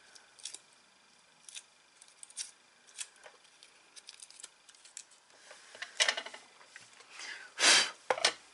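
Small crisp crackles and clicks of die-cut transparent-paper flowers being bent between the fingers. Then two louder rustling scrapes near the end, the second and loudest as the card box is shifted across the cutting mat.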